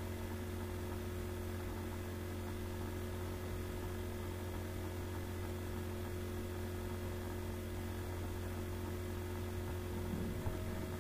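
Steady electrical hum with a faint hiss underneath, unchanging throughout; a couple of faint ticks near the end.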